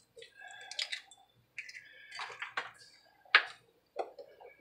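Eggs being tapped on the rim of a mixing bowl and cracked open by hand: a scatter of small, sharp taps and shell crackles, the loudest a little past the middle.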